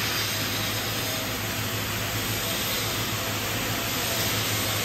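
TIG welding arc burning on a steel pipe root pass: a steady hiss with a low hum underneath.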